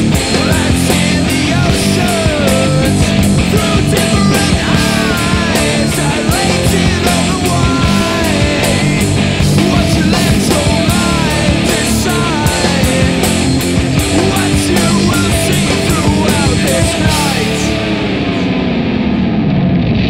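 Heavy stoner rock band playing: electric guitars with a bending lead line over drums and crashing cymbals. Near the end the drums stop and the guitars' last chord is left ringing.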